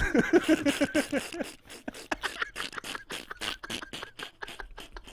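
Men laughing hard: a quick run of voiced laughs for the first second and a half, then rapid, breathy near-silent puffs of laughter that fade toward the end.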